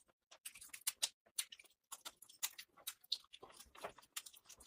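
Close-miked wet chewing and lip smacking of a person eating spicy mutton fat curry with rice: a quick, irregular run of sharp wet clicks.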